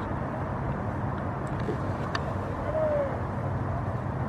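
Steady low outdoor rumble, with a faint distant shout a little under three seconds in.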